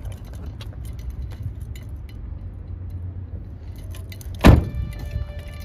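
Low steady rumble with scattered small clicks, and one loud thump about four and a half seconds in.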